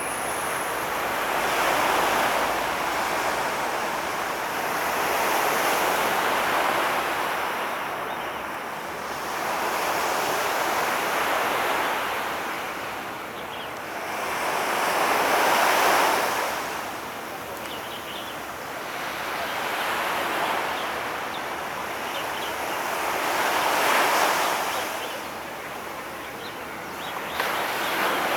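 Sea waves washing onto the shore, a hissing surge that swells and fades about every four to five seconds.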